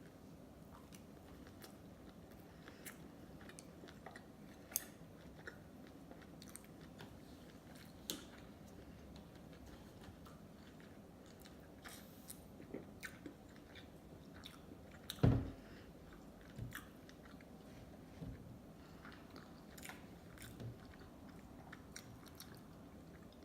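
Close-miked chewing of sushi in big bites, with scattered small wet clicks and smacks. One louder, low thump about two-thirds of the way through.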